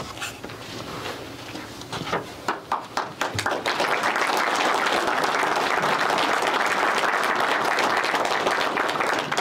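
Audience applauding: a few scattered claps at first, building over about a second into full, steady applause from around three and a half seconds in.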